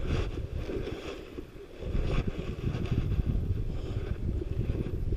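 Wind buffeting the microphone, an uneven low rumble that drops away briefly about a second and a half in.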